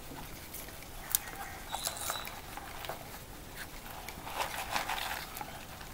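Faint rustling and a few light clicks of hands settling an orchid into a pot of moss, with one sharper tick about a second in.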